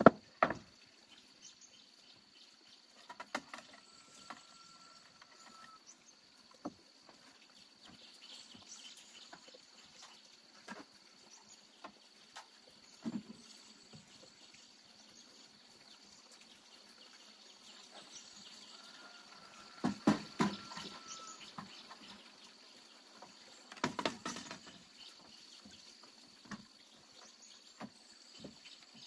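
Wooden knocks and clatter of planks being handled and set down on a plank deck, in a few short clusters with quiet gaps between, the loudest near the start and about two-thirds of the way in. A faint steady high tone runs underneath.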